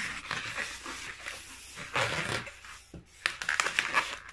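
A latex modelling balloon squeaking and rubbing under the hands as it is stretched and twisted, in uneven scratchy spells that grow denser about two seconds in and again after three seconds.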